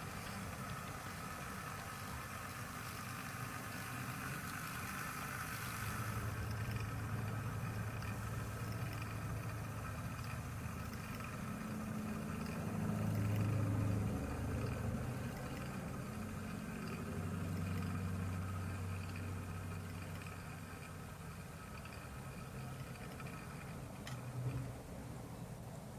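Model railway locomotive running, a low engine-like hum that swells and fades, loudest about halfway through, with a short click near the end.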